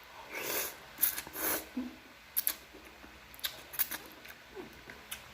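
Sounds of a person eating spicy noodles: three short breathy gusts of air in the first two seconds, then scattered small clicks of mouth and utensils.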